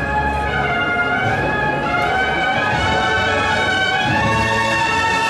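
Bugle-and-drum band (banda de cornetas y tambores) playing a processional march: a loud, sustained bugle melody over drums, the bugles coming in right at the start.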